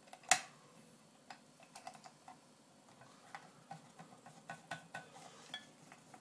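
Small screwdriver driving the platter screw into a laptop hard drive's spindle motor through a sweetcorn-tin platter-swap tool: a sharp click about a third of a second in, then scattered light ticks and clicks.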